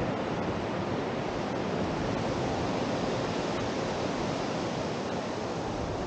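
Steady rush of sea surf on the beach, with no distinct waves or other events standing out.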